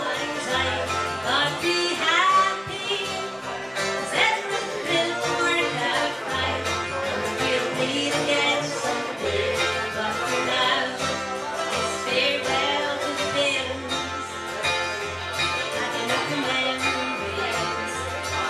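A folk song played live: banjo picked steadily, with a woman singing.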